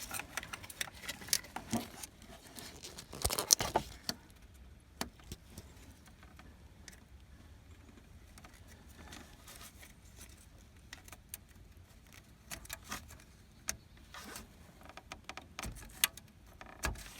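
Scattered light metallic clicks and clinks of hand tools being handled in an engine bay, with a louder clatter about three and a half seconds in.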